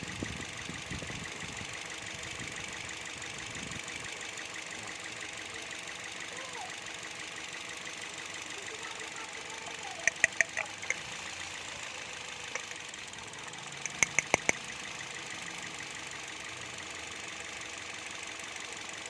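Toyota Vios engine idling steadily. Two quick runs of sharp clicks come about ten and fourteen seconds in.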